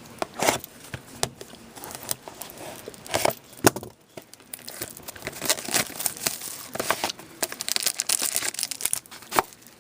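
Plastic wrapping being torn and crinkled as a sealed box of hockey trading cards is opened, a run of sharp crackles and rustles that gets denser about halfway through.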